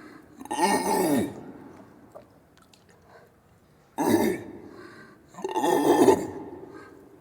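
Orangutan giving three rough, grunting calls, each sliding down in pitch: one about half a second in, a short one about four seconds in, and a longer one just after.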